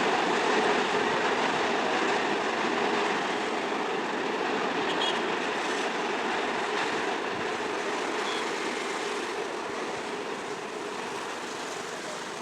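Passenger train running past on the rails, a steady rumbling rush that slowly fades as the train moves away.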